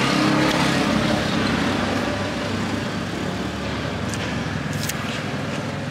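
Street traffic noise: a motor vehicle's engine running close by, fading over the first couple of seconds, over a steady roadway hum.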